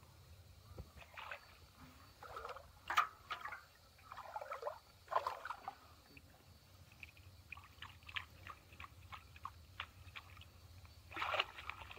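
Water splashing and sloshing in short, irregular bursts as hands grope about inside bamboo polo fish traps standing in shallow pond water, with a quicker run of small splashes in the second half.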